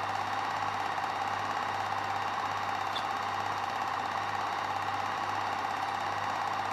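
Steady mechanical whirring clatter of a film projector running, even and unchanging throughout.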